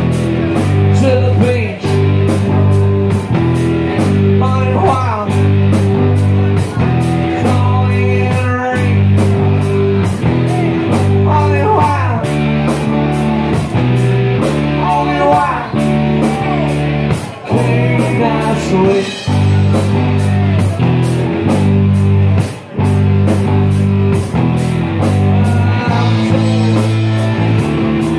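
Live rock band playing a song: electric guitars, electric bass and a drum kit, with a steady cymbal beat about twice a second.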